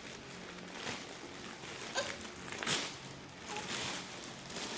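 Rustling and crinkling of a large parcel being handled and opened: a few short scratchy rustles, the loudest about two and a half seconds in, over a faint steady hum.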